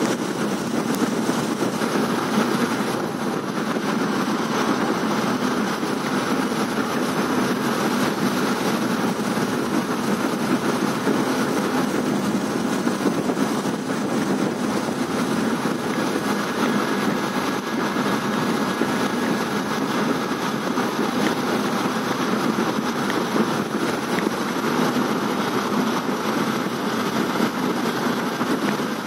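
Steady running noise of a moving passenger train, heard from inside the coach beside a barred window.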